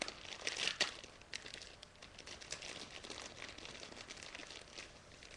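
Clear plastic wrapping crinkling and crackling as it is pulled off a small item by hand: a quick run of crackles, loudest in the first second, then lighter rustling.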